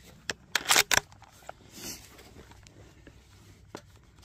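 .270 Winchester rifle being handled and readied on the bench rest: a quick cluster of sharp clicks and knocks just before a second in, the loudest part. A few softer single clicks and a brief rustle follow. No shot is fired.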